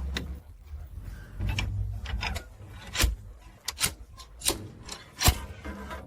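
Irregular sharp clicks and knocks, about five in the second half, over a low rumble and rubbing sounds.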